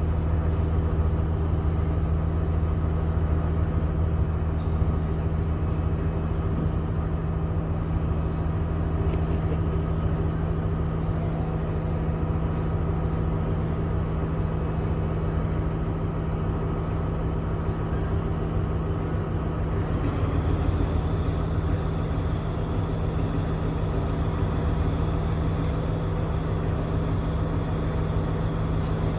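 Steady low hum of an idling engine, unchanging throughout, with a faint high whine joining about twenty seconds in.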